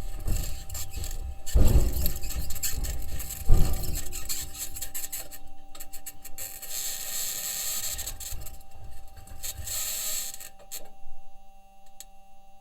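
Perseverance Mars rover's wheels and suspension knocking and grinding over the Martian surface, with two heavier knocks early on, under a high-pitched scratching noise that swells and fades. The engineers say the scratching may be electromagnetic interference from one of the rover's electronics boxes or the mobility system interacting with the ground. It is recorded by the rover's entry, descent and landing microphone.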